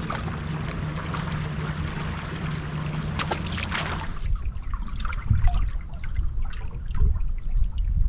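Water trickling and splashing around a boat. A steady low hum runs under it for the first four seconds or so, then stops, leaving scattered low thumps and small splashes.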